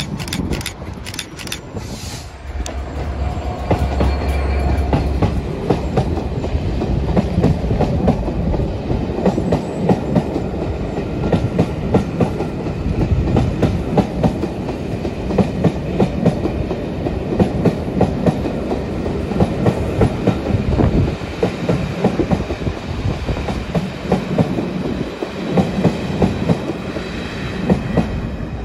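Class 67005 diesel locomotive, with its two-stroke EMD V12 engine running, passing close beneath at speed. It is followed by a long rake of passenger coaches whose wheels click steadily over the rail joints.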